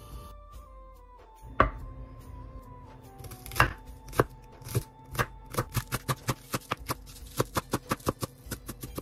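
Chef's knife chopping green onions on a wooden end-grain cutting board. A few separate cuts come first, then from about halfway a quicker, even run of about three cuts a second.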